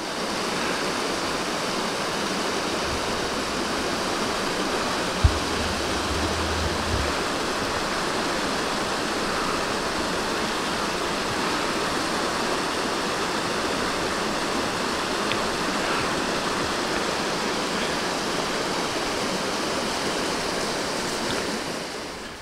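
Small mountain stream rushing and splashing over rocks in little cascades, a steady even rush of water. One brief knock sounds about five seconds in.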